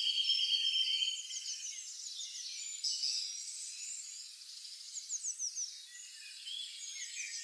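Several songbirds chirping and singing together in quick, high notes and short down-slurred calls. A steady buzzy trill carries through the first second.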